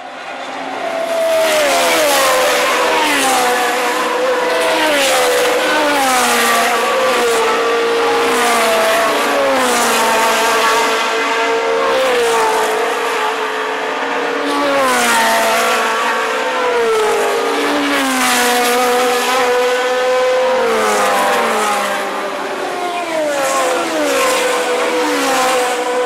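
Historic Formula One cars racing past at speed, several high-revving engines overlapping. The pitch repeatedly drops as each car goes by, and a high steady engine note swells again near the end.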